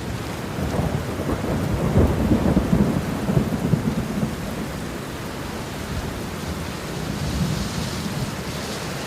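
Heavy rain falling, with a crackling rumble of thunder that is loudest from about two to four seconds in before easing back to steady rain.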